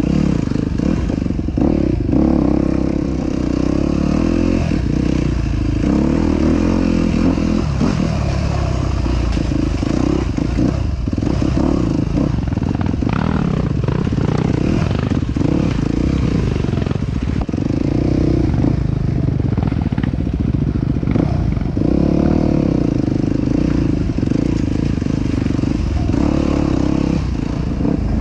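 ATV engine running continuously while riding, its note rising and falling with the throttle, with rattles and knocks from the machine over rough ground.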